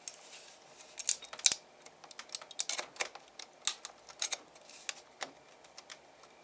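Irregular sharp clicks and scrapes of a small, firmly stuck PLA print being prised off the 3D printer's taped bed.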